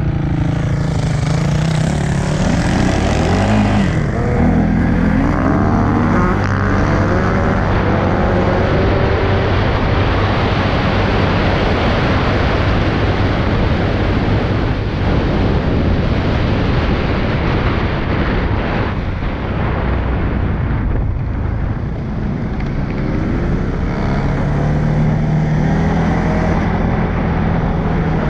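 CFMOTO CForce 625S ATV's single-cylinder engine running as the quad is ridden along a muddy track, its pitch rising and falling with the throttle in the first few seconds and again near the end. A steady rush of wind and tyre noise runs over the helmet microphone.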